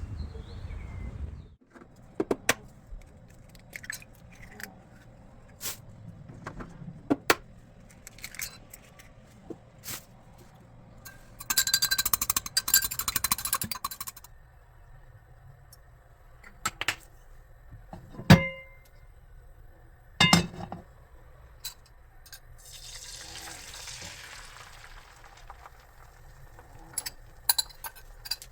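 Kitchen handling sounds: dishes and utensils clinking and knocking one at a time, with a ringing clink a little past halfway. A few seconds of hiss come before it, and a softer one a few seconds later.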